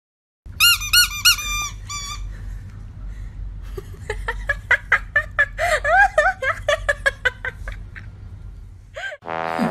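High-pitched squeaking: a quick run of near-identical squeaks about half a second in, then after a pause a longer string of wavering squeaks and short whines with light clicks.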